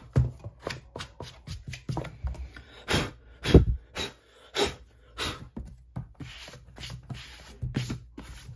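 Irregular taps, clicks and rubbing of a tablet folio case being handled as an iPad is pressed into it.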